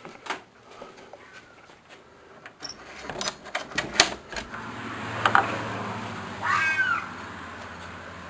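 A door is opened with clicks and knocks, letting in the night air, and about two-thirds in an animal gives a short screeching cry. The recordist suspects a fox or coyote in distress.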